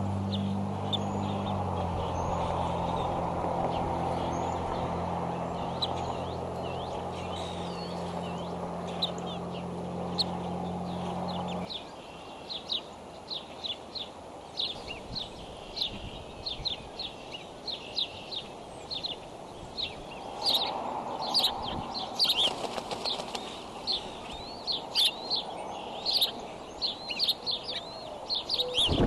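Many short, high bird chirps, a few a second, growing denser in the second half. A steady low hum runs under them and cuts off suddenly about twelve seconds in.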